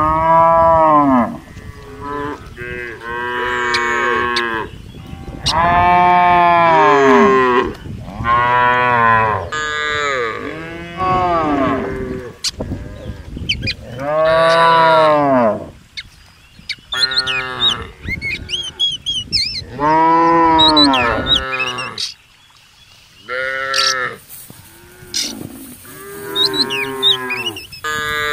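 Cattle mooing over and over, about a dozen long calls of a second or two each, several voices overlapping one another.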